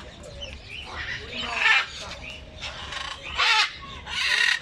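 Loud, harsh bird screeches, three of them, with softer bird chatter in between.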